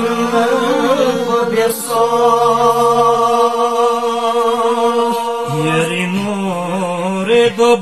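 Men's voices chanting a Balti qasida, a devotional poem, unaccompanied. They hold one long, drawn-out note through the middle, and a new phrase begins past halfway, rising in pitch.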